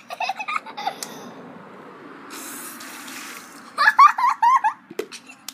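Water poured from a plastic sand bucket over a child's head, splashing onto the concrete in a short rush, followed by a child's loud, high-pitched squeal.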